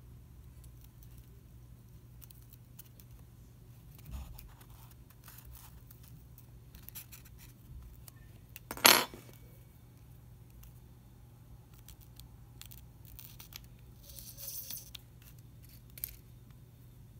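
Faint clicks and rustles of forceps, pins and paper strips being handled on a foam spreading board while a butterfly is pinned, over a low steady hum. One short, much louder knock comes about nine seconds in, and a brief rustle near the end.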